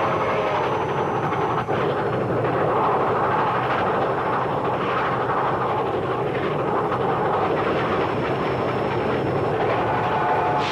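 A train running, giving a steady, dense rumbling hiss with a momentary drop about two seconds in.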